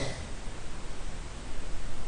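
Steady hiss with an uneven low rumble underneath, growing louder about one and a half seconds in.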